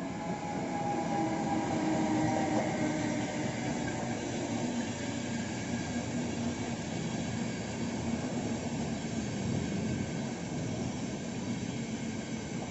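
A České dráhy electric locomotive, Siemens Vectron type, and its passenger coaches rolling past. A steady whine from the locomotive carries over the first few seconds, then the steady rumble of coach wheels on the rails continues.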